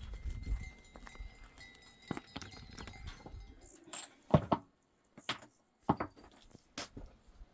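A few sharp clinks and knocks of hard objects, spaced about a second apart, the loudest about four seconds in.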